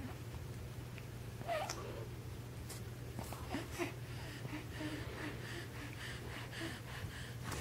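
Young baby making small breathy sounds and short soft coos, over a steady low hum.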